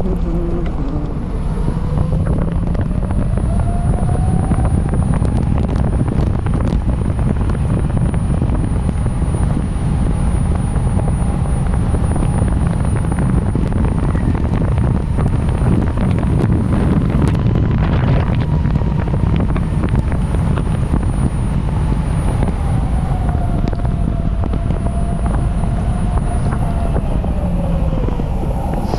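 Heavy wind rushing over the microphone as a homemade electric bike rides at speed, with the whine of its QS 5000 W hub motor riding on top. The whine rises in pitch over the first few seconds, holds steady, then drops back about two thirds of the way in as the bike slows.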